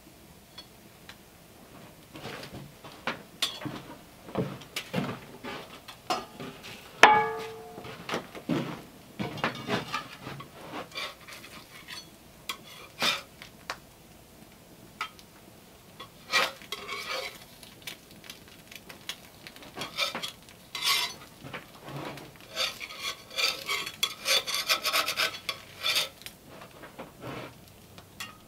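Irregular scraping and rubbing with scattered knocks, and one ringing metal clink about seven seconds in.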